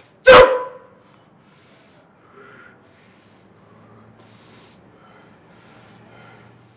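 A man's single loud sneeze, a sharp explosive burst about a third of a second in, followed by a few faint soft breath sounds.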